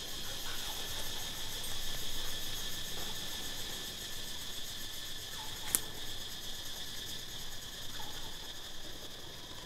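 A steady chorus of insects: an even, high-pitched drone with a fast pulsing texture, broken by a single sharp click just over halfway through.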